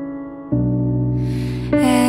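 Slow, soft piano ballad: a held chord, a new chord struck about half a second in, and a female voice starting to sing near the end.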